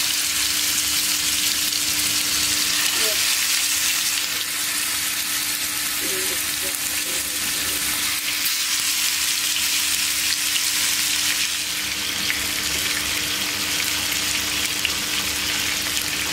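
Marinated chicken pieces sizzling as they shallow-fry in hot oil in a non-stick frying pan, a steady crackling hiss.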